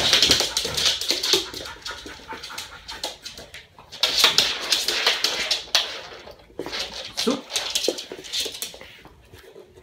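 Bed bug detection dog sniffing hard in rapid bursts while searching, in three spells with short pauses between.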